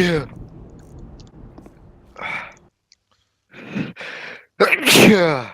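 A person sneezing over and over. The tail of one sneeze fades at the start, short breathy sounds follow, and a loud sneeze comes near the end, its voiced "choo" sliding down in pitch.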